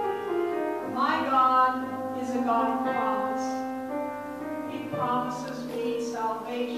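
Gospel choir and a woman lead singer singing over held keyboard chords.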